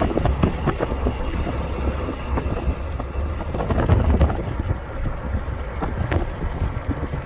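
Wind buffeting the phone's microphone from a moving car, over steady road noise, with many small crackles and pops from the buffeting.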